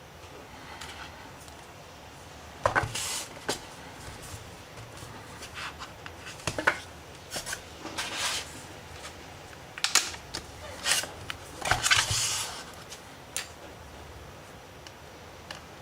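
Scattered sharp plastic clicks and short scrapes from a ZTE E9Q+ tablet's casing being handled and pried open by hand.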